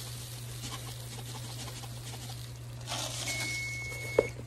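A pot of butter, milk, cocoa and sugar at a boil, bubbling faintly over a low hum. About three seconds in, a timer gives one high, steady beep lasting about a second, signalling that the one-minute boil is done, and a sharp knock follows just after.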